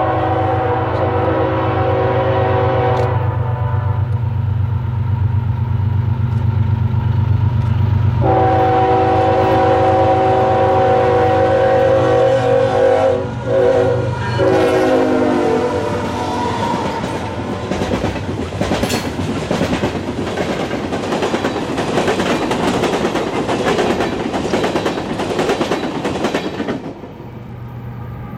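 Horn of CSX 3244, a GE ES44AC-H leading a coal train, sounding a multi-note chord in long blasts over the steady drone of the diesels: one blast ends about three seconds in, another starts around eight seconds and is followed by two shorter ones. The locomotives then pass close and the coal cars roll by with a dense clatter of wheels on rail, until the sound drops sharply near the end.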